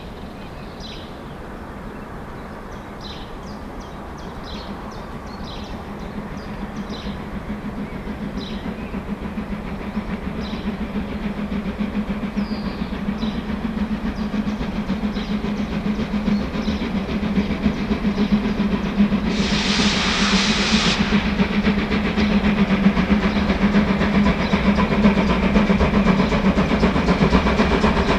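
Deutsche Reichsbahn class 01.5 steam express locomotive 01 0509 approaching with a passenger train, its running growing steadily louder. One short whistle blast comes about two-thirds of the way through.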